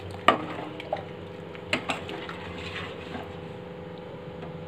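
Steel ladle stirring milk in a steel pot, knocking against the pot's side a few times in the first two seconds, then only a steady background hum.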